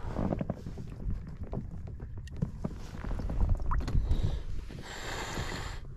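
Wind rumbling on the microphone, with small clicks and knocks of fishing gear being handled. A short hiss comes in about five seconds in.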